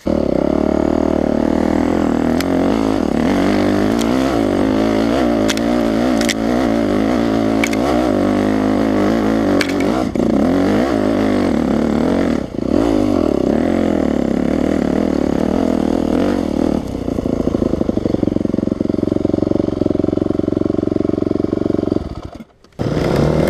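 Dirt bike engine running and revving under load while riding over rough ground, with occasional knocks and clatter. Around two-thirds of the way in the note drops to a choppy low-rev chug as the bike comes to rest, then the sound cuts out for a moment near the end.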